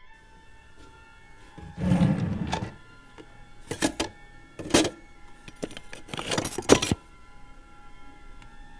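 A kitchen drawer is pulled open about two seconds in, then metal utensils clatter several times as a hand rummages through them and draws out a knife. Faint sustained music tones play underneath.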